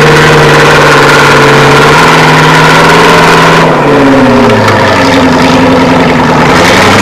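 Loud off-road trials buggy engine running under load at held revs while towing a car up a muddy bank on a line. About four seconds in the pitch drops and settles at a lower steady note.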